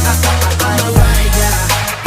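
Background hip-hop music with a heavy deep bass and a drum hit about once a second.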